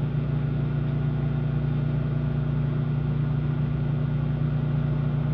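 Microwave oven running: a steady electrical hum with a strong low drone.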